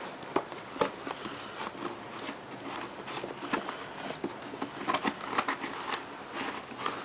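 Packaging being handled as a parcel is unpacked: irregular rustling with scattered sharp clicks and crinkles.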